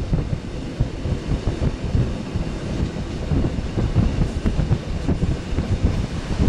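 On board an EN57 electric multiple unit in motion: steady rumble of wheels on the rails, with a few faint clicks from the track.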